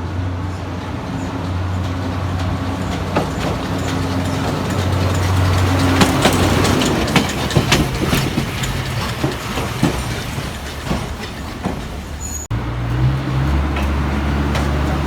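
Botchan Ressha replica steam locomotive's diesel engine running with a steady low hum, with a run of metallic clanks and knocks in the middle. The sound changes abruptly near the end.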